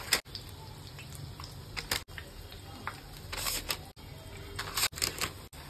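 A metal slotted spoon clinking and tapping a few times as fried pakodas are lifted out of the pan and set down on paper, over a faint low background.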